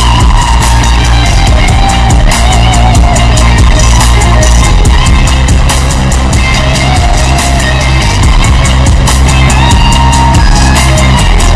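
Wrestling entrance theme music: rock track with drum kit and guitar over heavily boosted bass, beating steadily.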